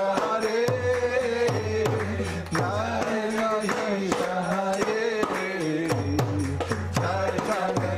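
Man singing a devotional chant while playing a mridanga (khol) drum: deep bass strokes that bend down in pitch, alternating with sharp higher slaps, under a steady sung melody.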